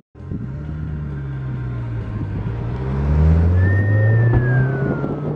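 Car engine running under load, its pitch and loudness climbing as it accelerates about three seconds in. A thin high tone slides down in pitch near the end.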